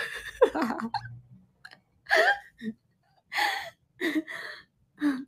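A woman laughing in short breathy bursts, some of them voiced, about a second apart.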